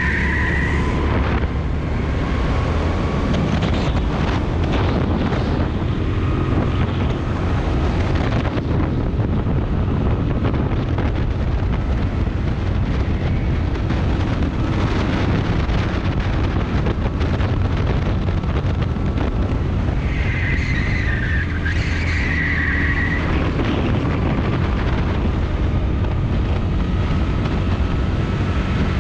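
Rental go-kart's small engine running hard at speed, heard from the driver's seat with wind buffeting the microphone and other karts' engines close by. A wavering high squeal at the very start and again about 20 seconds in, as the kart corners, fits the tyres scrubbing.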